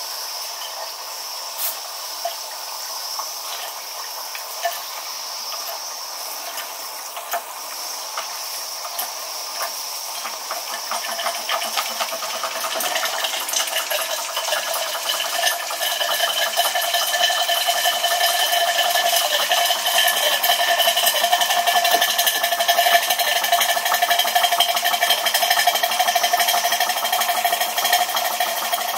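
Jensen 20G toy steam engine starting once its steam valve is opened: at first a steady hiss of steam with a few clicks, then from about ten seconds in the engine gathers speed. It settles into a fast, even mechanical rhythm as it drives its geared transmission and belt drive, growing louder.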